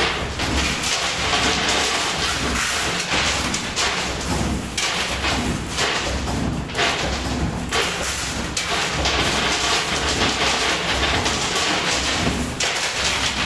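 Coin pusher machine running: coins clattering and rattling over a steady mechanical din that swells and eases every second or two.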